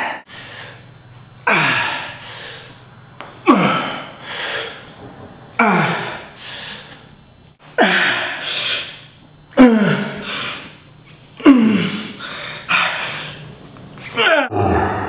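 A man grunts and exhales hard with each rep of dumbbell tricep kickbacks. It comes about every two seconds: a sharp, falling-pitched grunt followed by a second breath, seven times in all.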